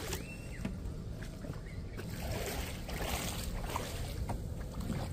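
Water trickling and sloshing around a kayak on the water, over a steady low rumble.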